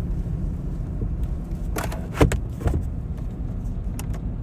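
Car driving up a road, heard from inside the cabin: a steady low rumble of road and engine noise, with a few short sharp knocks about two seconds in.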